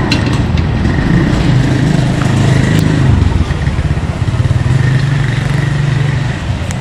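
A motorcycle engine running close by, its pitch shifting a little now and then, over a steady hiss of deep-frying oil and a few light clicks of metal utensils.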